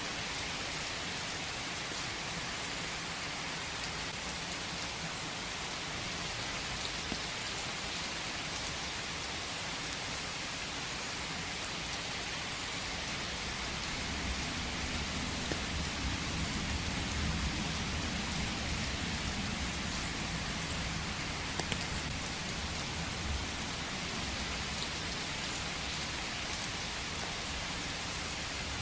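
Steady rain falling, an even hiss with scattered drop patter. About halfway through, a low rumble swells for several seconds and fades again.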